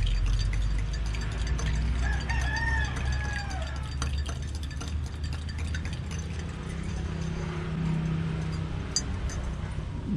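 A rooster crows once, about two seconds in, over a steady low hum.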